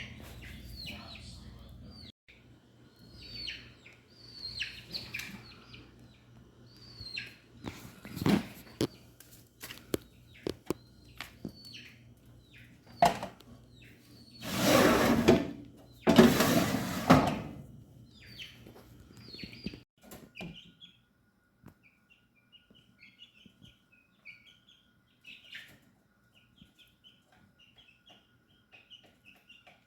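Chicks peeping: repeated short, high, falling peeps throughout, becoming a quicker chatter in the last third. Scattered clicks and two loud scraping noises about halfway through, each lasting a second or two, with a low steady hum that stops about two-thirds of the way in.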